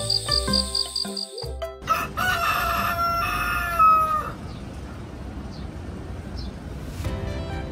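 A rooster crowing once as a morning sound effect, about two seconds in, after gentle music notes with a chirping insect effect stop. City street noise follows, and music comes back in near the end.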